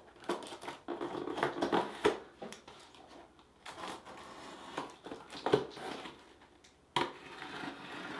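Utility knife slitting the packing tape along the top of a cardboard box, in irregular scraping strokes with the cardboard crackling and a few sharp clicks.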